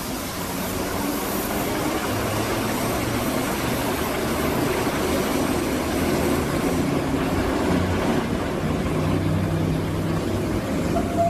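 E646 electric locomotive hauling a short train out of the station and passing close by: a steady hum of its motors over the rumble of wheels on rail, growing louder as it approaches.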